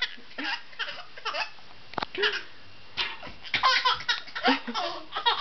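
Infant laughing in repeated short bursts of giggles and belly laughs, with a single sharp click about two seconds in.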